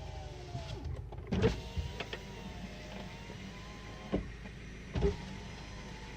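Ford Focus II 1.6-litre 100 hp petrol four-cylinder engine running steadily with a faint whine. Three sharp knocks come at uneven intervals: a loud one about a second and a half in, then two more about a second apart near the end.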